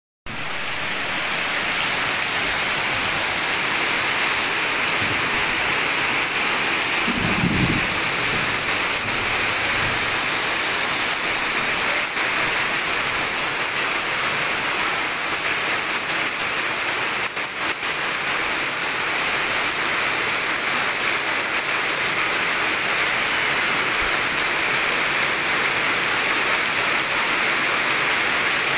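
Heavy rain pouring steadily onto a flooded paved lane, with rainwater streaming across the ground. A brief low rumble about seven seconds in.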